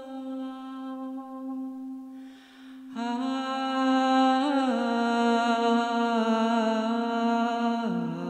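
A woman singing wordless, long held notes into a microphone. There is a brief pause about two and a half seconds in, and her pitch drops near the end.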